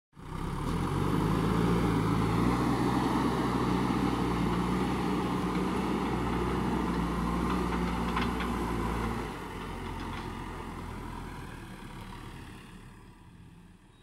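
JCB 3DX backhoe loader's diesel engine running under load as it pushes soil with the front bucket, with a few faint knocks about eight seconds in. A little after nine seconds the engine sound drops in level, then grows fainter to the end.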